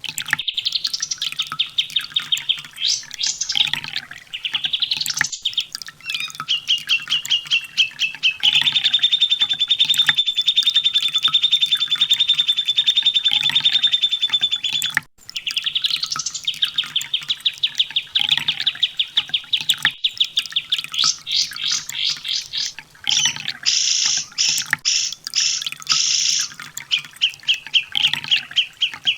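Sunbird song: rapid, high-pitched trills of fast-repeated chirps, with rising sweeps and long unbroken rattling runs. The song breaks off briefly about halfway, then resumes.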